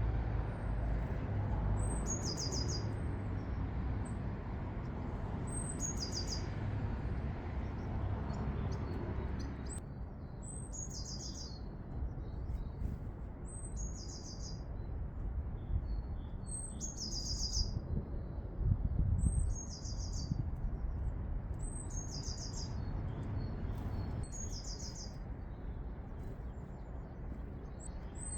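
A small garden songbird sings a short, high, trilled phrase over and over, once every two to four seconds. Under it runs a steady low rumble that eases off about ten seconds in.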